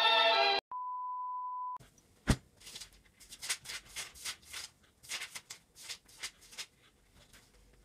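A steady electronic beep lasts about a second, then a knock, then the thin paper pages of a Bible being flipped by hand: a quick run of page rustles that stops about two-thirds of the way through.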